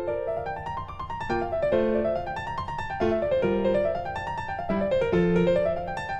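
Background piano music: runs of quick notes rising and falling over held lower notes.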